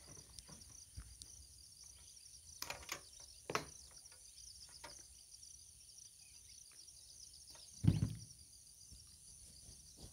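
Hands handling stiff insulated wire and a plastic MCB distribution board: soft rustles and a few small clicks and knocks, with one louder thump about eight seconds in. A faint steady high-pitched hiss runs underneath.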